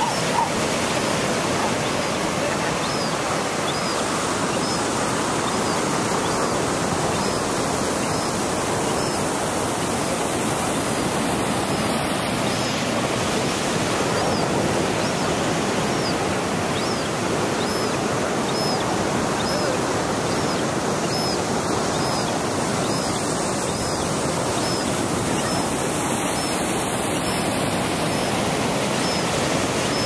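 Ocean surf rushing and breaking over the rocks, a steady wash of noise, with a faint high peep repeating about once a second: a western gull chick's begging cries.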